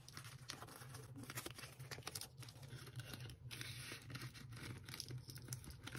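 Faint rustling and crinkling of paper banknotes being handled and slid into a clear plastic binder pouch, with many small irregular clicks and taps.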